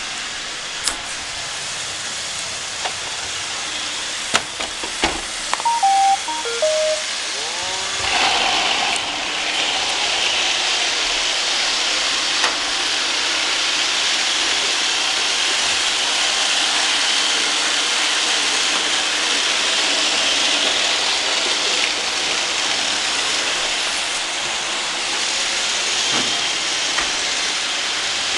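Roomba robot vacuums running with a steady whirring hiss. A few clicks and a short series of stepped electronic beeps come about six seconds in, and about eight seconds in the whirring gets louder.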